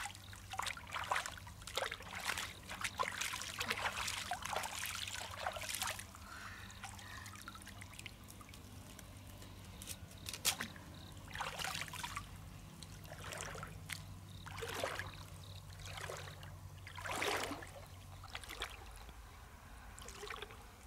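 Shallow stream water splashing and trickling as hands scoop freshwater mussels from the bottom and lift them out dripping. A busy run of splashes in the first six seconds, then single splashes every second or two.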